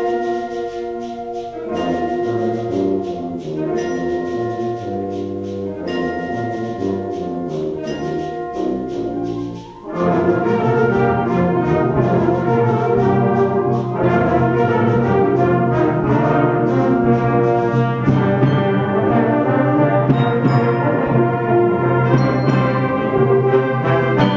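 Concert band playing: a softer passage of held brass chords, then about ten seconds in the full band comes in louder with brass, low sustained bass and percussion.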